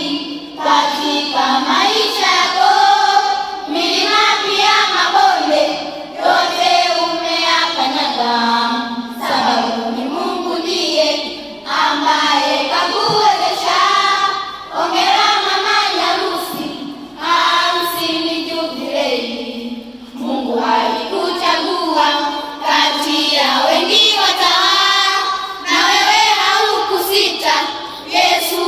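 A children's choir singing together, phrase after phrase with short pauses between lines.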